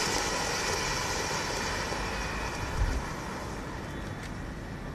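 Blue colour smoke fountain hissing steadily as it vents a dense column of smoke, the rush slowly fading. There is a brief low thump about three seconds in.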